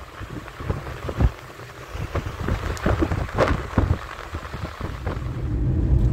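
Road noise inside a moving car: low tyre rumble and hiss with irregular knocks and thumps, growing louder and steadier near the end.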